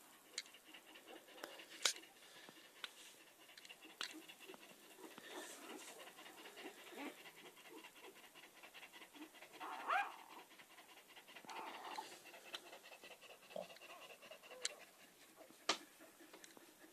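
Portuguese water dog panting steadily, with a short rising squeak about ten seconds in, the loudest sound in the stretch.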